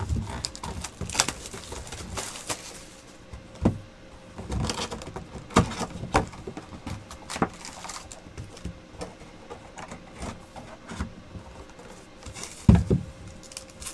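A cardboard trading-card box being unwrapped and opened by hand: shrink-wrap and cardboard rustling with scattered taps and clicks, and a louder thump near the end.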